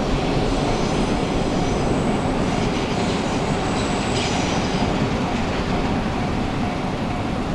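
Freight train rolling past, a steady rumble of wagon wheels on the rails with faint high-pitched wheel squeal.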